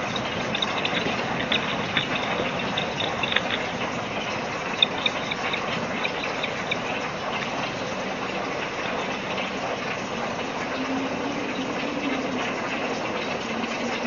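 Steady outdoor background rush, with short high chirps scattered through the first seven seconds and a faint low hum later on.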